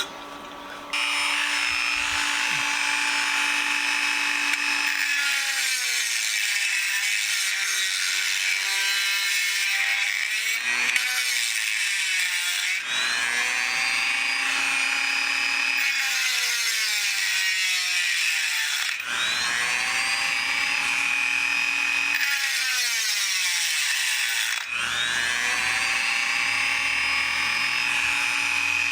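Handheld rotary tool running at high speed with a steady high-pitched whine, working on a stuck part of a Stanley No. 700 corner vise. Three times its pitch drops briefly and climbs back up.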